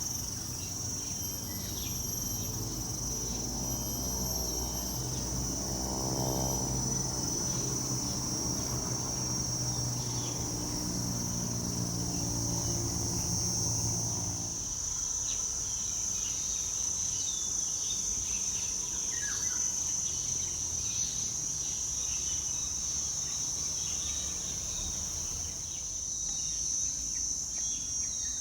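Tropical forest ambience: a steady high-pitched drone of insects, with a few faint bird chirps. A low steady hum sits underneath for the first half and then stops.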